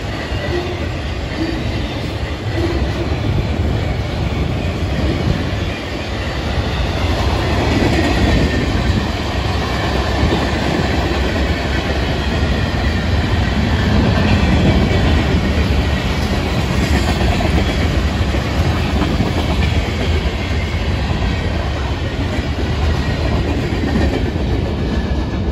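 Florida East Coast Railway freight cars rolling past close by: a steady, loud rumble of steel wheels on the rails.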